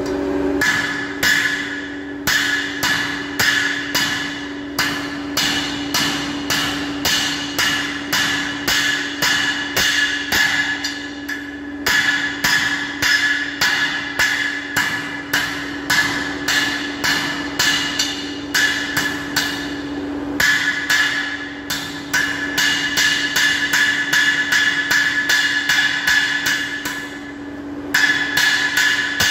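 Hammer blows on hot steel on a smithy anvil, about two to three a second, each with a bright metallic ring, in runs broken by short pauses: a rod being forged down to a 10 mm square section. A steady hum sounds beneath the blows and stops about two-thirds of the way through.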